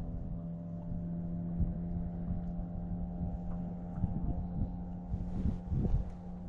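A steady mechanical hum with several overtones, over low uneven rumbling and a few soft knocks.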